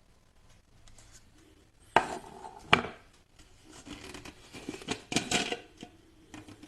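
Hard plastic parts of a jug blender being handled and fitted together: two sharp knocks about two seconds in, then a cluster of clicks and clatter around five seconds in. No motor runs.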